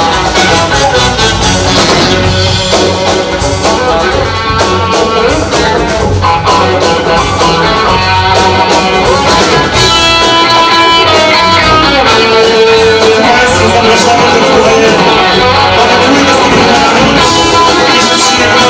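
Live blues-rock band playing an instrumental passage, with an electric guitar taking the lead over the drums and the rest of the band.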